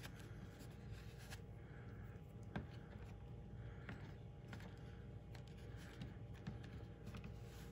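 Faint handling sounds of hands pressing and smoothing sculpting clay onto a foam taxidermy manikin's neck, with a few soft clicks, over a steady low hum.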